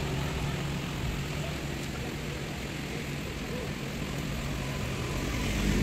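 Road traffic ambience: a steady, low engine drone of passing motor vehicles, easing off and then swelling again near the end as another vehicle approaches.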